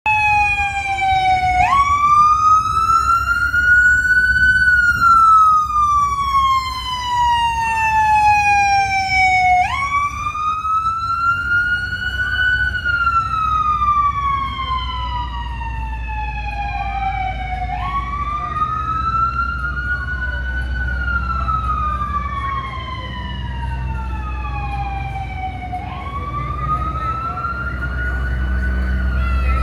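Emergency vehicle siren on a slow wail: each cycle jumps up suddenly, climbs for a few seconds, then falls slowly, repeating about every eight seconds. A fainter second siren sweeps over it, above a low engine rumble.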